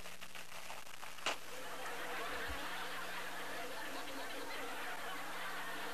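Audience laughter that swells in just after a single sharp click about a second in, with a steady low hum underneath.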